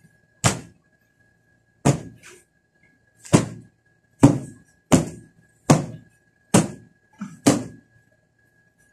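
Fabric floor-sofa cushions being beaten to knock out dust: about nine heavy thumps at roughly one a second, the last two close together.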